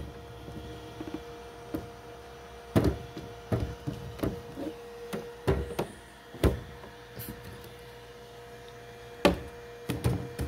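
Hard plastic Makita 18 V battery packs and charger being handled: scattered knocks and clicks at irregular intervals, a pair of them near the end as a battery is brought onto the charger, over a steady hum.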